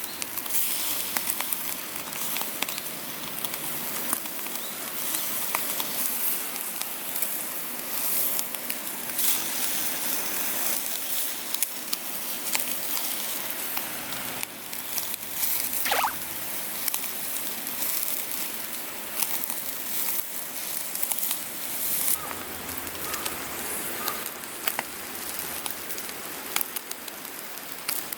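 Steady crackling and sizzling with many small sharp pops, from a wood cooking fire with meat grilling over it.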